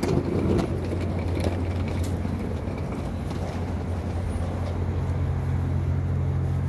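City street traffic noise: a steady low engine hum, with a few light knocks in the first two seconds.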